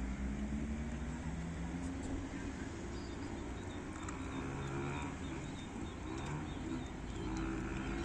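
Distant town ambience: a steady low rumble of traffic, with faint brief tones now and then.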